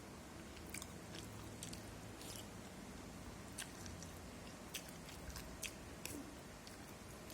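A person chewing fish-cake food (model ikan and pempek) close to the microphone, with faint scattered mouth clicks and smacks.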